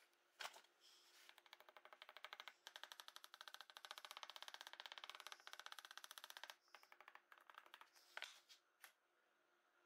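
A screwdriver turning small screws into the pattern's centre plug, faint: a fast, even run of fine clicks for about five seconds, with a single knock just before it and another near the end.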